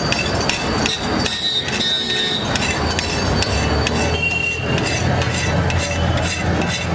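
Metal scraper scraping and knocking across a large flat iron griddle (tawa), clearing off cooked egg residue in quick repeated strokes, several a second.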